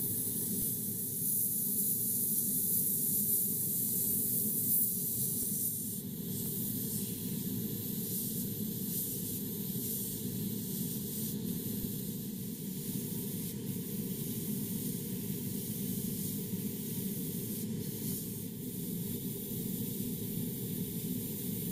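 Gravity-feed airbrush spraying paint, a steady hiss of air and paint that drops a little about six seconds in.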